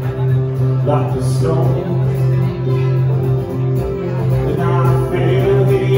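A band playing live music: guitar over sustained held chords.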